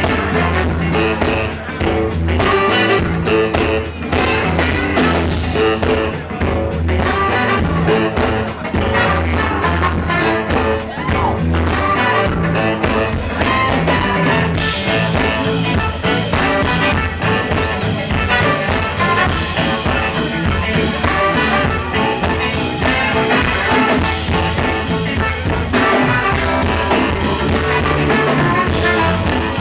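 Live funk band playing with a steady beat: a horn section with baritone saxophone and trumpet, electric bass, keyboards and drums, with women singing.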